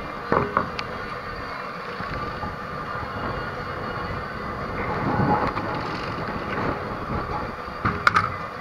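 A steady, rumbling outdoor noise, with a few sharp knocks about half a second in and again near the end.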